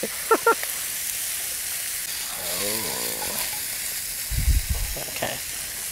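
Mixed vegetables (broccoli, cauliflower and carrots) frying in hot oil in a pan and being stirred with a spatula, with a steady sizzling hiss. A dull low thump comes about four and a half seconds in.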